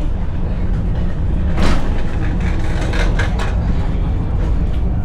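Kintetsu Nishi-Shigi funicular car running up its steep track: a steady low rumble, with a few brief rattles about a second and a half in and again around three seconds in.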